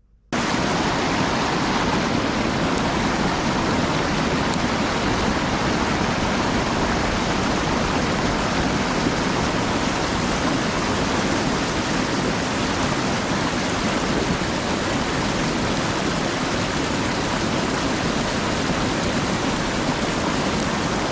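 Fast river water rushing and churning through whitewater, a steady, even roar of flowing water.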